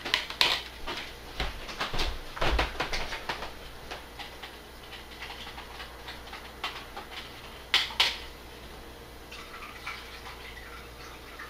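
A spoon clicking and scraping in a small plastic container as a marinade is stirred, in quick scattered clicks over the first few seconds. Then a few sparse knocks from the room, with two sharp clicks just before the 8-second mark.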